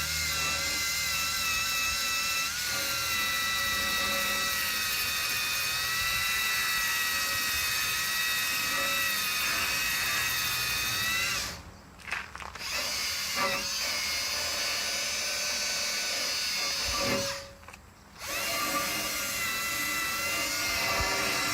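Electric power tool spinning a fiber abrasive pad against a bare steel bumper, a steady motor whine whose pitch sags a little under load, cleaning the surface for paint. It stops briefly twice, about twelve seconds in and again about five seconds later, then runs on.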